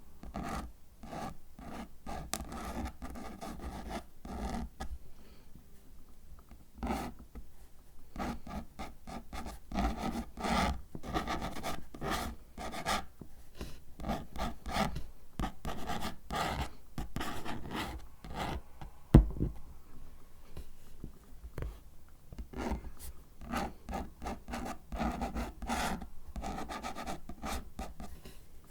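Paper and cardboard rubbed and scratched by hand in a long run of short, dry strokes, with one sharp click about nineteen seconds in.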